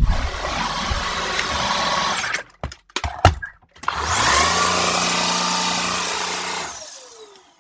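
Cordless stick vacuum running with a high motor whine, switched off about two seconds in, a few clicks, then switched on again, its whine rising as it spins up, running steadily and winding down with a falling whine near the end.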